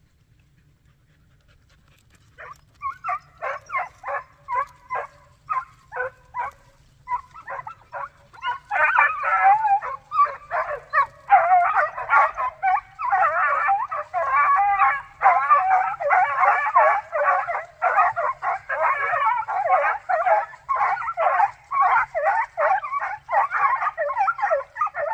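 Hunting hounds baying on a hare's trail. After about two seconds of quiet, single barks come about twice a second. From about eight seconds in, several dogs give voice together in a dense, overlapping chorus: the pack in full cry.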